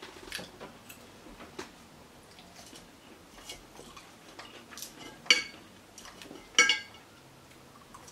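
Metal forks clicking and scraping on a foil tray and a glass dish while twirling and lifting linguine, with two sharper ringing clinks about five and six and a half seconds in.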